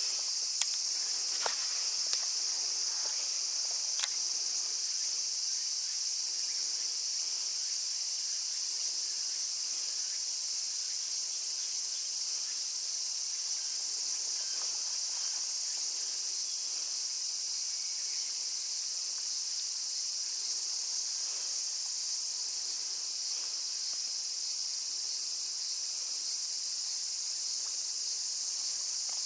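Steady high-pitched drone of a summer insect chorus, an even buzz that does not change. A few faint clicks in the first few seconds.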